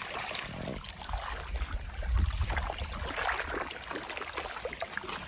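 Lake water splashing and trickling with many small, irregular splashes as a person wades in for a swim.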